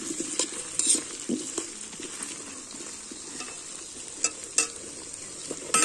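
Potato chunks sizzling in hot oil in a metal kadai as a metal spatula stirs them, with a few sharp scrapes and clicks of the spatula against the pan.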